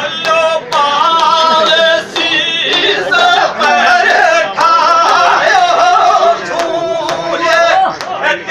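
A man singing a Gujjar dhamal folk song loudly, holding long high notes that waver in pitch, with a few scattered sharp strikes.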